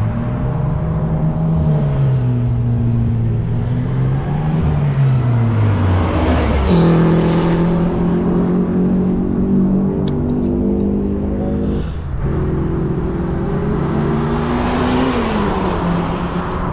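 Track-day cars running flat out down the main straight past the pit wall. Their engine notes drop in pitch as each car goes by, with a brief break in the note about twelve seconds in.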